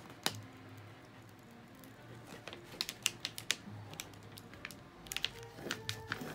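Clear plastic carrier sheet of a rub-on furniture transfer crackling and clicking under the fingers as it is pressed down and shifted, in scattered sharp ticks that get busier near the end.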